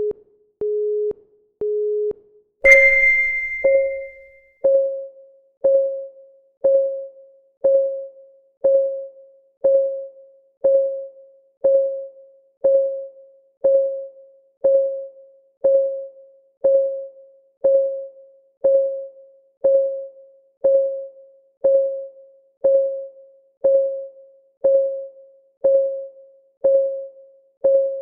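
Countdown timer sound effects: three short beeps a second apart, then a bright chime about three seconds in. After the chime, a steady clock-ticking sound follows once a second, each tick a short pitched note that dies away quickly.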